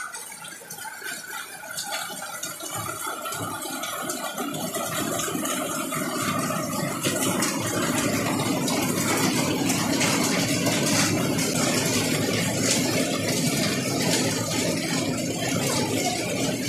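Heavy rain falling on the roof overhead, a dense spatter of drops that grows louder over the first several seconds and then holds steady.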